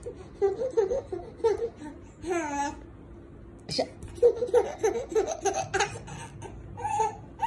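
Baby laughing in runs of short, breathy giggles, one run starting about half a second in and another around four seconds in.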